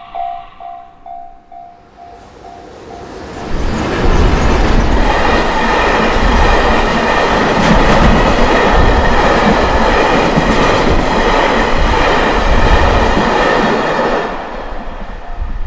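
A train passing through a level crossing: its rumble swells from about two seconds in, stays loud with wheels clacking on the rails for about ten seconds, then fades away. The crossing's warning bell rings in a steady pulse at the start and again near the end.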